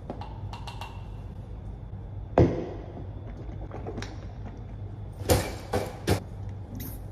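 Steady low hum of a room's ventilation in a small tiled room. A sharp, loud knock comes about two and a half seconds in, and a quick run of three or four knocks and clatters follows near the end as things are handled.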